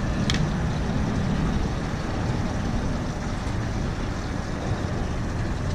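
Steady low rumbling wind noise buffeting the microphone on an open boat, with no engine note or voices.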